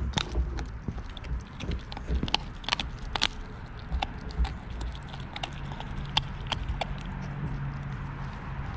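A 13-week-old Lycan Shepherd puppy chewing and crunching a whole raw fish: irregular wet crackles and sharp clicks of teeth on bone as it bites.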